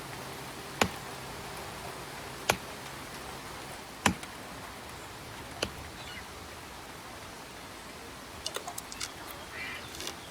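Steady rain falling, with four sharp drops landing close by at even intervals of about a second and a half. A bird gives a few short high calls near the end.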